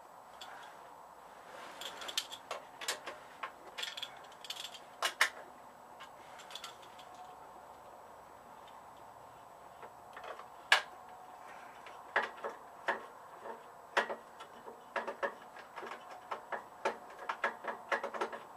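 Irregular clicks and light knocks of hand tools and metal parts as the snowblower's recoil starter is bolted back in place. The clicks come in two busy spells, one early and one over the last several seconds, with a quieter gap between.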